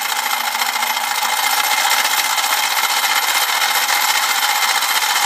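Molecular motion demonstrator running, its vibrating sides shaking a tray of beads into a loud, steady, dense rattle as they bounce against each other and the walls.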